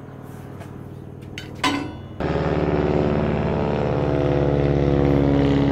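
A propeller biplane flying overhead, its piston engine droning steadily. The drone is faint at first and becomes suddenly much louder about two seconds in. A brief sharp sound comes just before the jump.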